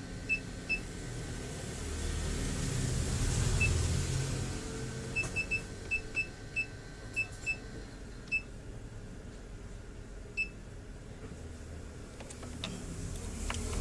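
About a dozen short, high electronic beeps at irregular intervals, some in quick runs, from a bench DC power supply's controls as its output is being set to 18 volts. A low hum runs underneath.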